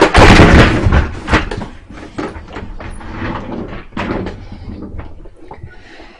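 Someone rummaging about to grab an object: a loud rustling clatter in the first second, then scattered knocks and clicks of things being handled and moved, growing sparser toward the end.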